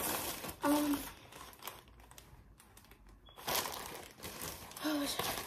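Plastic clothing packaging bag crinkling as it is handled, in two bouts with a quieter gap between, and two very short hums of voice.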